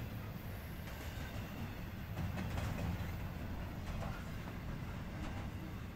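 Intermodal freight train cars rolling past: a steady low rumble of wheels on rail with a few faint clicks of wheels over rail joints.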